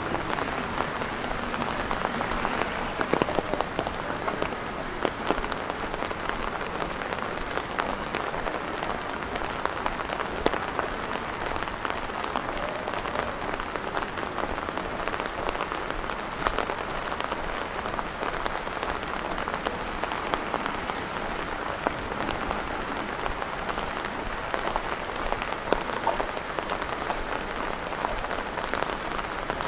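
Steady rain falling, a dense even crackle of countless small drop hits.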